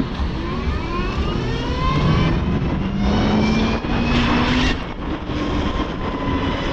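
Motorcycle engine accelerating, its pitch climbing, dropping at a gear change about two seconds in, then climbing again before easing off near five seconds. Steady wind rumble on the microphone underneath.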